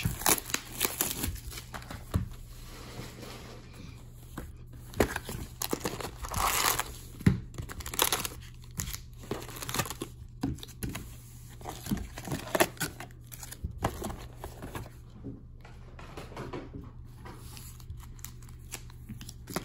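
Foil trading-card packs crinkling and rustling as they are lifted out of an opened cardboard box and stacked on a table, with scattered light taps.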